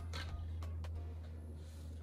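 A utensil scooping thick cake batter from a bowl into a metal springform pan: faint soft scraping with a few light clicks in the first second, over a steady low hum.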